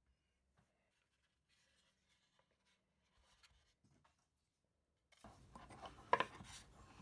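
Near silence with a few faint clicks, then about five seconds in a short spell of light scratching and rubbing as hands set a steel rule and tool against an oak drawer.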